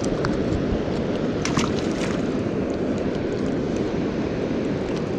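Steady rush of water pouring over a river spillway, with a few faint clicks about one and a half seconds in.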